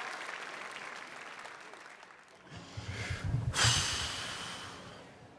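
Studio audience applause dying away over the first couple of seconds. Then a short low rumble, and about three and a half seconds in a sudden bright swell of noise that fades out again.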